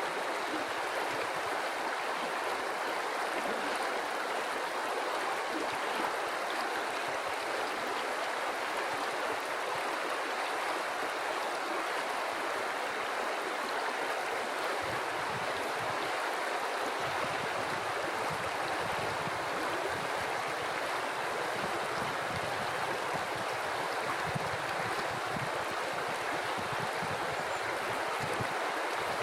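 River water flowing steadily over stones: an even, continuous rushing babble, with a little more low rumble in the second half.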